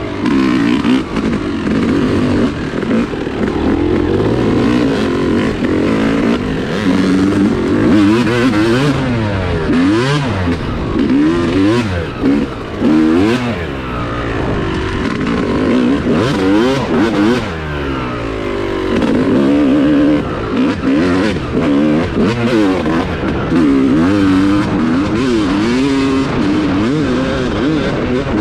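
Yamaha YZ250 two-stroke single-cylinder dirt bike engine being ridden hard, revving up and dropping back again and again as the throttle opens and closes.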